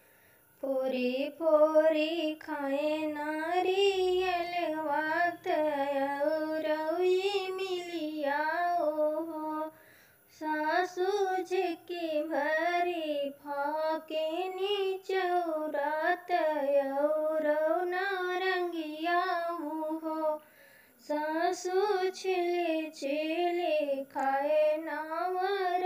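A woman singing a sohar folk song alone, without accompaniment, in long wavering phrases broken by two short pauses between lines.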